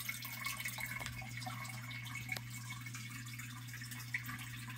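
Faint drips and small splashes of water as a spoonful of water holding a tadpole is tipped into an aquarium, a few soft ticks over a steady low hum.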